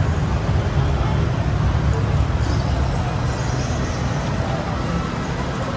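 Busy city street ambience: a steady low rumble of road traffic.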